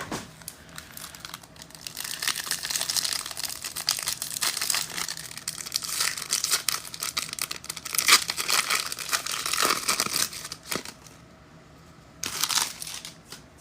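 Foil trading-card pack wrappers crinkling as they are torn open and handled, in dense crackly bursts for most of the time, then a short lull and one more brief burst near the end.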